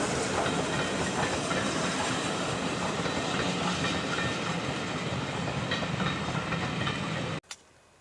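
Steam-hauled passenger train running along the track, a steady rumble and rail clatter from the coaches with a hiss of steam. It cuts off abruptly a little before the end.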